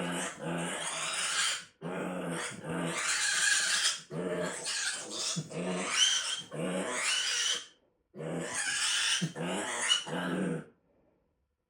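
Pet pigs grunting and squealing in a run of harsh calls, each about a second long with brief gaps, stopping about a second before the end.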